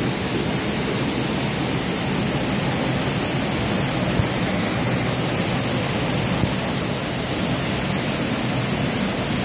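River water rushing steadily past, a constant even roar of flowing water with no change in level.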